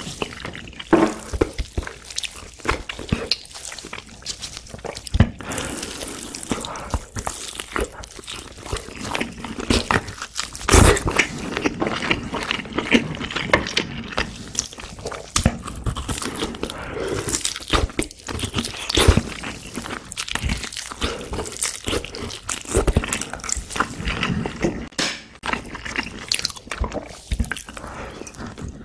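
Close-miked eating sounds: biting and chewing pork back ribs and braised kimchi, a dense run of irregular clicks and smacks, with one louder bite about eleven seconds in.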